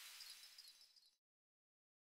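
Near silence: a faint hiss fades out, and the sound drops to dead silence about a second in.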